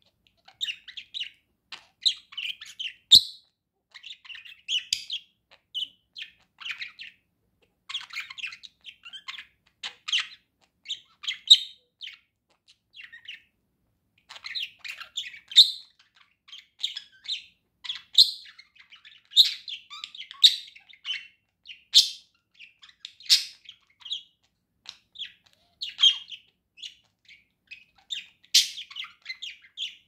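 Budgerigar warbling: a near-continuous chatter of short chirps, clicks and squeaks, with a few sharper, louder chirps and a brief lull about halfway through.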